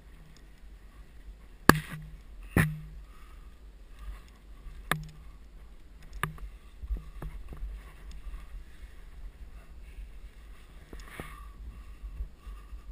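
Scattered sharp clicks and knocks of climbing gear and the helmet camera against sandstone as a climber moves up a crack, the two loudest close together about two seconds in, over a steady low rumble.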